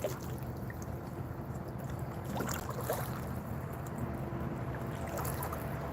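Quiet river ambience around a kayak: water moving and lapping, light wind on the microphone, over a constant low hum.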